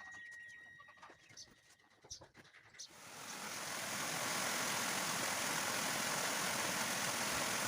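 Lamb meat frying on a saj griddle: a steady sizzle swells up about three seconds in and holds. Before it there are only faint scattered clicks.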